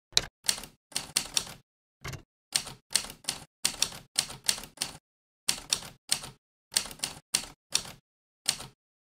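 Typewriter keys striking one by one, about twenty sharp clacks in uneven runs with short pauses between them, as a line of text is typed.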